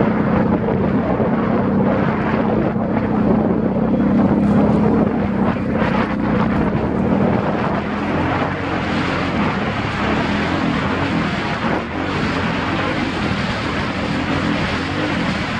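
ATV engine running continuously, steady in pitch at first, then rising and falling as the throttle changes in the second half, with wind noise on the microphone.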